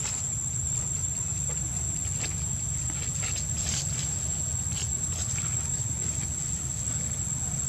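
Steady, high-pitched drone of insects holding one pitch throughout, over a low steady rumble. A few short, faint high chirps come and go in the middle.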